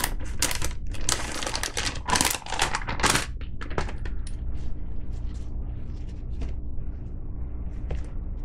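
Packaging and a nylon sling with metal fittings rustling and clicking as the sling is pulled out and handled. The crinkling and clicks are densest in the first three seconds, then thin out into quieter, scattered handling.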